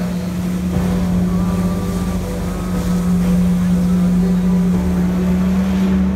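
Jet ski engine running steadily at high revs, pumping water up a hose to drive a flyboard. It is a strong, even drone that creeps slightly higher in pitch, over a rushing hiss.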